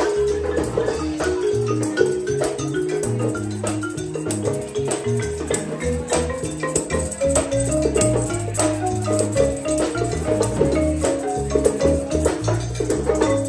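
Live band music: a marimba played with mallets runs a quick melody of short struck notes over drums and a bass line, with a tambourine shaking along.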